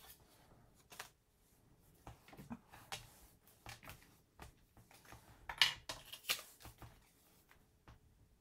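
Paper and cardstock being handled on a craft cutting mat: scattered light rustles and taps, the two sharpest a little past the middle.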